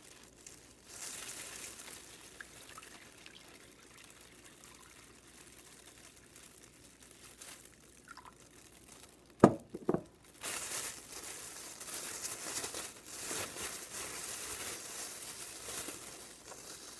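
Water poured from a plastic cup into a thin plastic bag, with the bag crinkling as it is handled and fills. Two sharp knocks about halfway through are the loudest sounds, followed by a longer run of pouring and rustling.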